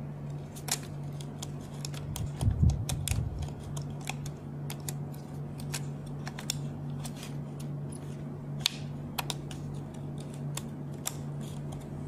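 Irregular small plastic clicks and taps as an 8GB DDR3 laptop RAM module is pushed and seated into its memory slot, with a dull bump about two and a half seconds in. A steady low hum runs underneath.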